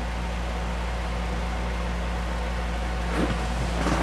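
Steady mechanical hum with a low drone and an even hiss, room background noise, with a couple of faint soft sounds near the end.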